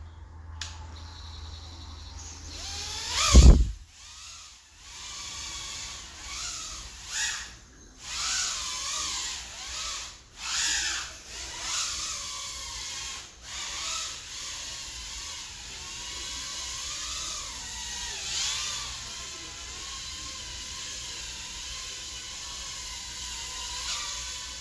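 Mobula6 tiny whoop FPV drone's small brushless motors whining, the pitch rising and falling with throttle. A single loud thump comes about three seconds in.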